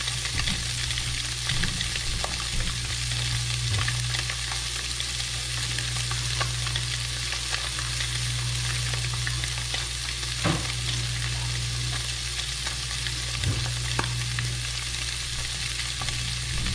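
Seasoned hybrid striped bass fillets searing in hot oil in a cast iron skillet: a steady frying sizzle with a few sharper pops, over a steady low hum.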